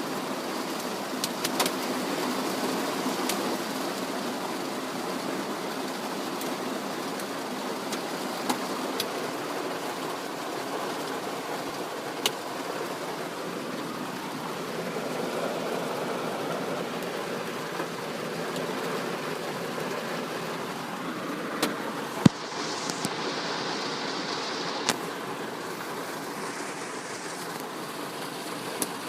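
Hail falling on a vehicle: a steady dense patter with scattered sharper single hits, the loudest a little past the two-thirds mark.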